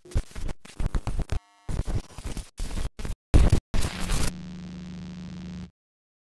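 VHS-style glitch effect: loud, choppy bursts of static and distorted noise that switch on and off abruptly. About four seconds in it settles into a steady low electrical hum, which cuts off suddenly about a second and a half later.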